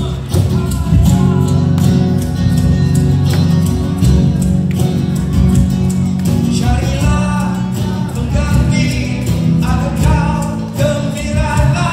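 Live band music with drums, bass and guitar; a singing voice comes in about halfway through.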